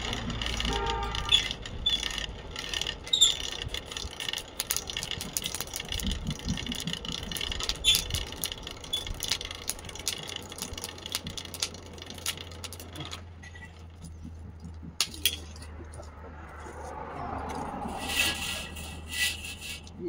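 Steel band-saw blade and steel clamping pins clinking and rattling against a metal jig bar as they are handled and set in place on the ground, with many small sharp clicks through the first dozen seconds, then only a few isolated clinks.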